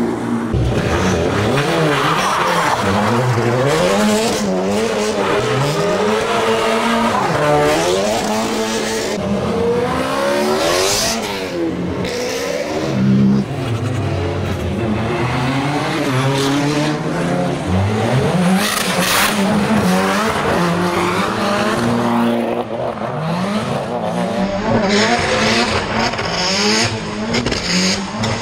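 Hill-climb race car engine at full effort, its pitch climbing and dropping over and over every second or two as it works up and down through the gears.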